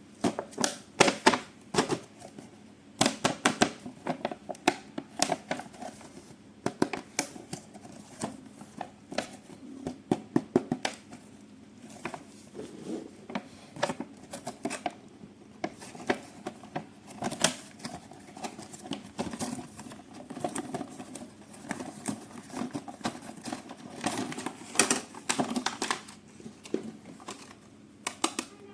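Toy packaging being handled and opened: irregular clicks, crinkles and rustles of plastic and cardboard, in bursts with short pauses between.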